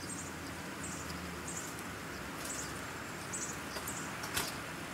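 Insects chirping in short, high, repeated calls over a quiet outdoor background, with one sharp click about four and a half seconds in.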